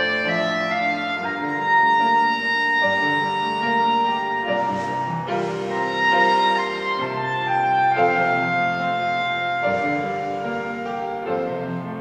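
Solo clarinet playing a slow, legato hymn melody with long held notes, over piano accompaniment.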